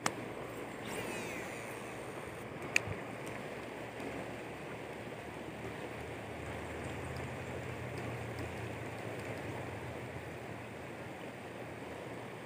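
Steady rush of a shallow river running over rocks, with a single sharp click about three seconds in.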